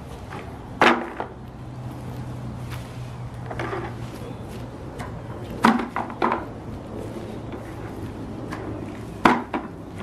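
Red plastic drum body of a Henry vacuum cleaner being kicked and tumbling on grass: sharp knocks, one about a second in, a softer one midway, a quick cluster around six seconds and a pair near the end.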